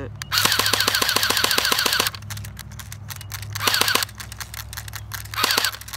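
Battery-powered HK MP7 airsoft gun firing on full auto at about ten shots a second, with a mechanical whine under each string. It fires one burst of under two seconds, then two short bursts near the middle and the end. The shooter wonders whether it has run out of BBs.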